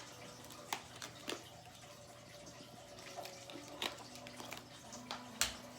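A few scattered sharp clicks and taps, the loudest near the end, over a faint steady hum.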